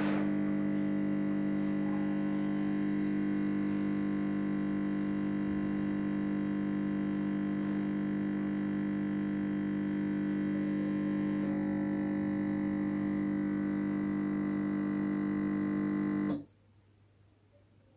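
Gastroback Piccolo espresso machine's vibratory pump humming steadily while it pulls an espresso shot. The hum cuts off suddenly about sixteen seconds in as the pump stops and the shot ends.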